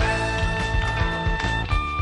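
Live swing jazz band: a tenor saxophone holds a long high note, moving to another held note near the end, over drums, cymbals and bass.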